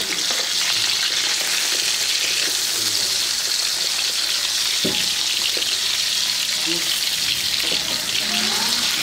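Poa fish sizzling as they fry in oil in a metal karahi, a steady hiss, while a wooden spatula moves and turns them. A single knock comes about five seconds in.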